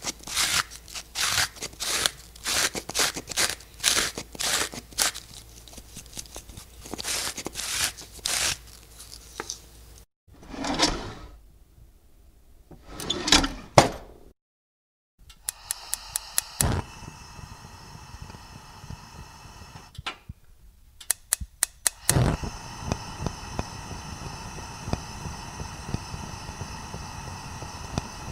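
A metal spoon scraping and clinking against an aluminium cooking pot while stirring, in several short clips joined together, with irregular strokes at a few per second. The last several seconds hold a steady hum.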